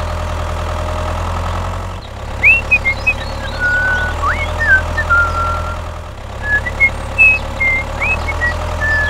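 Tractor engine running steadily with an even chug. From about two seconds in, short high chirps and whistles, some sweeping sharply upward, sound over it.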